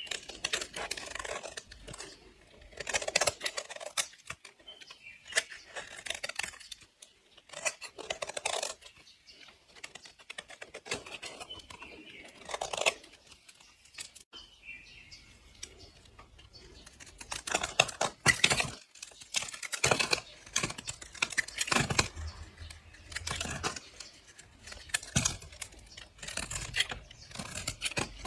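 Blade slicing through dry soap: irregular crisp, crunchy cuts and scrapes, some in quick runs, with short pauses between strokes.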